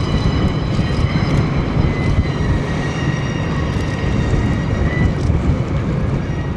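Nagoya Rinkai Railway ND552 diesel locomotive hauling KiHa 40-series railcars at low speed: a heavy, steady engine and rail rumble, with a thin, steady, high-pitched squeal over it.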